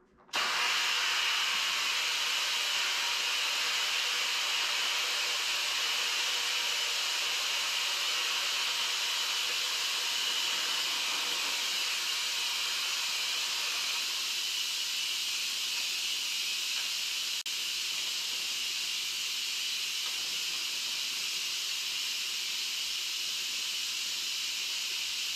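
Instant Pot Duo electric pressure cooker venting steam through its pressure-release valve at the end of the cook: a loud, steady hiss that starts abruptly and carries on, thinning slightly in its lower part about halfway through.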